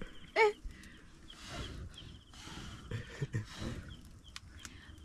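A chicken clucks once, loudly, about half a second in, while a small bird trills faintly and repeatedly in the background.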